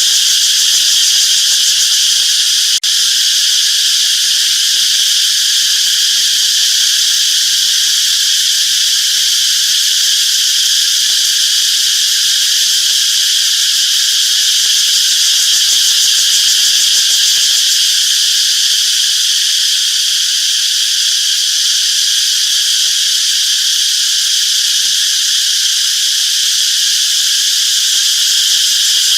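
Cicadas singing: a loud, steady, high buzz that runs without a pause, broken only by a momentary dropout about three seconds in.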